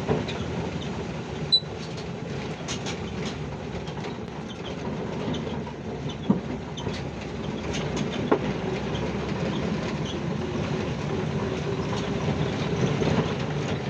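Volkswagen Kombi van driving along, its running noise mixed with a clatter from underneath and a few sharp knocks, a noise the driver takes for something come loose under the van.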